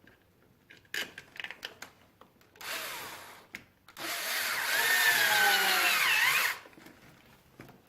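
Cordless power drill/driver spinning in two bursts, a short one and then one of about two and a half seconds whose whine sags and rises as the speed changes. A few light clicks of parts being handled come before it.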